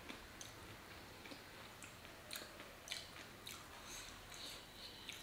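Faint chewing of a mouthful of pani puri, with scattered short clicks and crunches at irregular intervals.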